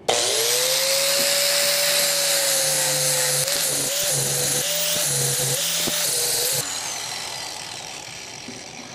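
Angle grinder starting up and grinding a bevel on square steel tubing, its whine rising as it spins up and then dipping in pitch several times as the disc bites the metal. It is switched off about six and a half seconds in and spins down.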